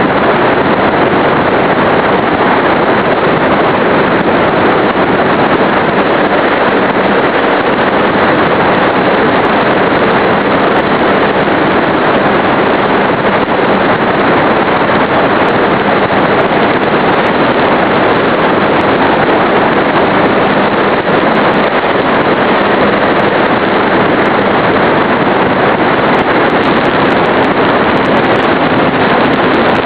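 Steady, loud rush of wind and electric motor and propeller noise, heard through a small RC airplane's onboard camera microphone in flight.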